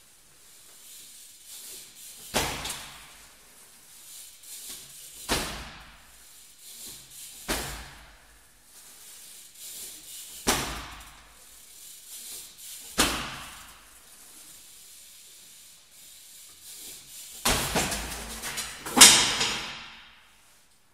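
BMX bike landing and clattering on a concrete floor, with an echo from the garage. There are sharp impacts every two to three seconds as the rider hops and lands barspin attempts. The loudest, longest clatter comes near the end, and then the sound stops.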